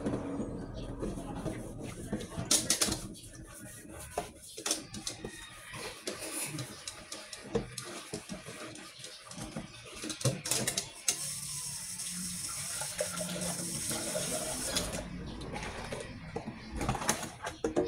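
Dishes being washed by hand at a kitchen sink: scattered clinks and knocks of glassware and crockery, with the tap running for a few seconds past the middle.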